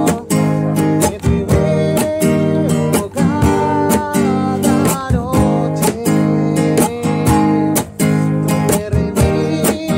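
Music: an acoustic guitar strummed in a steady rhythm, with a melody line above it.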